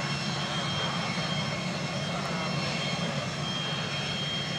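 Cessna Citation CJ4 business jet taxiing, its twin Williams FJ44 turbofans running steadily with a high, even whine over a low rumble.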